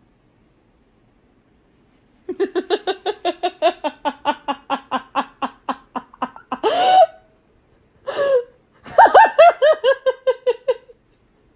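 A woman laughing hard, starting about two seconds in. It begins as a long run of quick, even ha-ha pulses, rises into a loud squeal a little past halfway, and ends in a last run of higher-pitched laughter.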